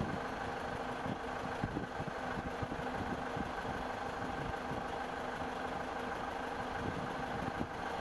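An engine running steadily, a continuous low hum with faint steady tones and no changes in pitch.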